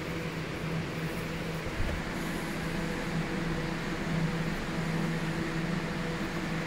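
Steady hum of a cold store's refrigeration and air-circulation fans, a low drone with fainter higher tones above it over a hiss of moving air.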